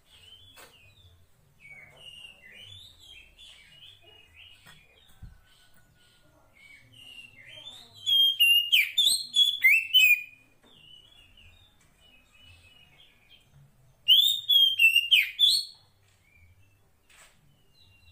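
Female Oriental magpie-robin (kacer poci) calling to draw a male: soft scattered chirps and whistles throughout, broken by two loud bursts of rapid, varied chirping, about eight seconds in and again about fourteen seconds in.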